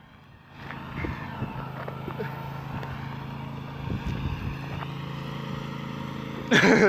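Small single-cylinder or twin lawn-tractor engines, a riding mower and a little garden tractor, running steadily as they drive along the road. A voice calls out briefly near the end.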